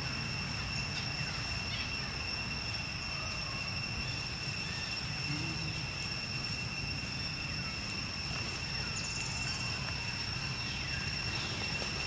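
Steady outdoor background noise: a low rumble under a constant high-pitched whine, with a few faint, scattered chirps.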